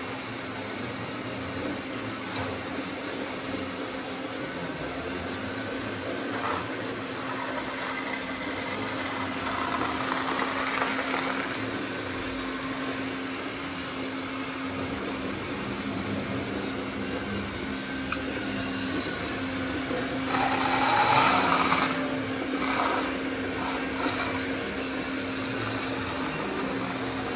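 Steady whine of the small electric motors of radio-controlled model trucks and construction machines running, with a louder rushing noise for a second or two about twenty seconds in.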